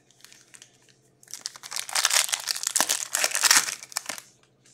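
Plastic wrapper of a hockey card pack crinkling and tearing as the pack is opened by hand. A few faint ticks come first, then about three seconds of dense crinkling starting about a second in.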